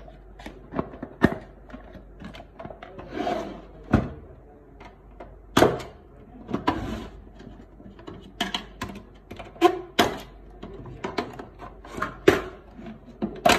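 Plastic clicks, snaps and knocks of a Canon LBP 6000 laser printer's side cover being released from its latches and pulled off by hand, coming as irregular sharp strokes.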